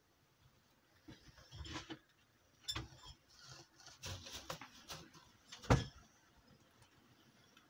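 Scattered rustling in wood shavings and hay as a mini lop rabbit moves about its bedding, with one sharp knock a little after halfway.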